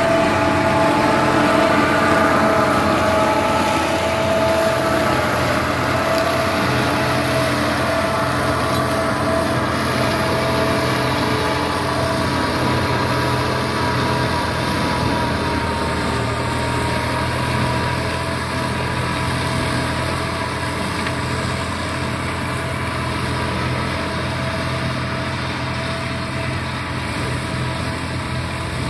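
Solis Yanmar tractor running under load with its PTO-driven sugarcane trash shredder (pala cutter) spinning and chopping dry cane leaves. It makes a steady mechanical drone with a held whine that fades slowly as the tractor moves away.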